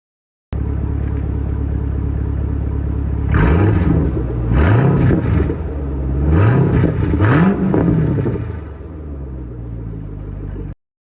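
2011 Chevrolet Camaro SS V8 idling through a stock GM LS3 exhaust, revved four times in quick succession a few seconds in, each rev rising and falling, then settling back to a steady idle.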